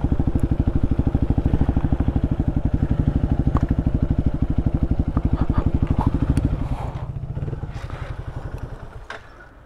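Motorcycle engine idling with an even, fast beat; about seven seconds in it drops in level and fades away.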